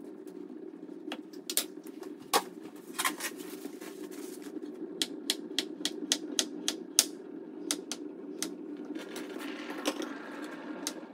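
Kitchen knife clicking against a cutting board while slicing an avocado: a run of sharp, irregular taps, quickest and most regular a little past the middle. A steady low hum sits underneath.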